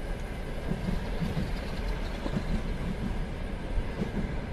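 Steady low rumbling background noise with a faint hum and scattered soft low knocks, like the ride of a train or vehicle, continuing under the narration.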